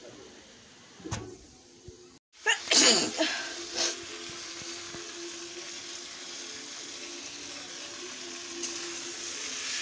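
A person sneezing loudly about two and a half seconds in, with a smaller burst about a second later. A steady hiss follows.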